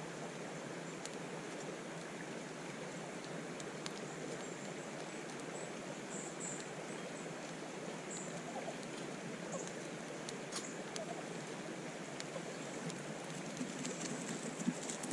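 A creek flowing steadily, with a few faint clicks and ticks through it and a sharper tap near the end.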